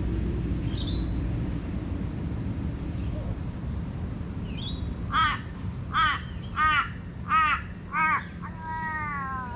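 A crow calling off-camera: five loud caws about two-thirds of a second apart, then one longer call that falls slightly in pitch near the end. A small bird chirps faintly a couple of times earlier.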